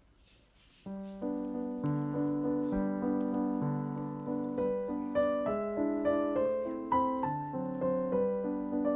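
Background piano music begins about a second in: a gentle melody over soft chords, each note striking and fading.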